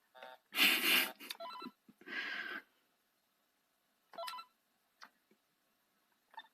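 Game Boy Color beeping through its small speaker as menu choices are confirmed in the sewing-pattern software. It makes short bleeps and chirps, with a louder buzzy jingle about half a second in, another about two seconds in, and a last blip about four seconds in.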